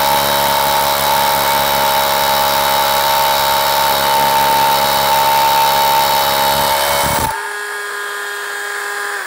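Cordless DeWalt 1-1/8-inch SDS Plus rotary hammer with its attached dust extractor, drilling a 5/8-inch hole into concrete. It runs steadily under load and goes in deep with no dust. About seven seconds in the hammering stops, and a quieter steady whine carries on.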